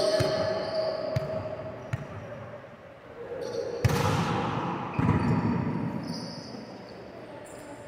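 Volleyballs being struck and hitting the floor of an indoor court: several sharp, echoing thuds at irregular intervals, the strongest about four and five seconds in.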